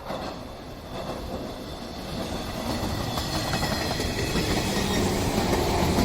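A train approaching on the line, getting steadily louder, with the wheels clattering over the rails.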